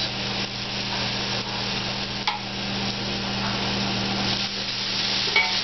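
Chili flakes sizzling in hot oil with chopped garlic and shallots in a stainless saucepan, stirred with a wooden spoon, as a steady frying hiss over a low hum, with a single light knock about two seconds in.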